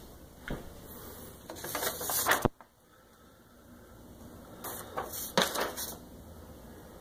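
Crackling rustles and clicks from a handheld camera being handled and moved around, in two bursts about two seconds and five seconds in. A low hum cuts out suddenly midway.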